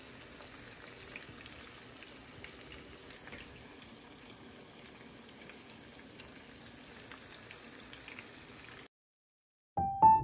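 Salmon fillets frying in butter in a pan: a low, steady sizzle with scattered small pops and crackles. The sizzle cuts off about nine seconds in, and piano music starts near the end.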